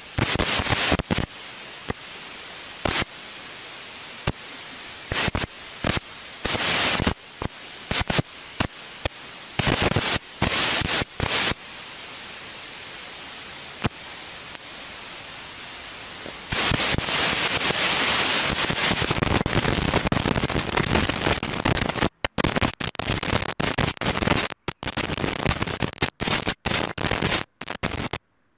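Harsh static hiss broken by frequent sudden loud crackling bursts, with a louder stretch of steady noise a little past the middle and several brief dropouts to silence near the end.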